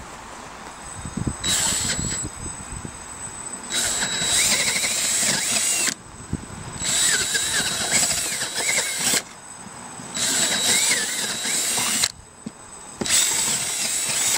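Cordless drill running in five short runs as a bit widens bolt holes in a fiberglass boat deck, with a steady high motor whine and a wavering whine from the bit as it cuts.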